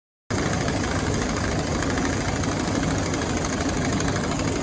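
Pneumatic impact wrench hammering steadily as it torques down the push rods (torque bolts) of a cone crusher nut; it cuts in abruptly just after the start.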